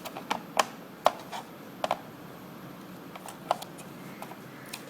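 Irregular small sharp clicks and taps of parts being handled and fitted on a Toshiba C850 laptop during reassembly, about eight of them scattered over a few seconds.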